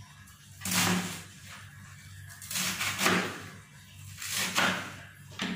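Chef's knife slicing through crisp napa cabbage onto a plastic cutting board: four or five separate crunching cuts, about a second apart.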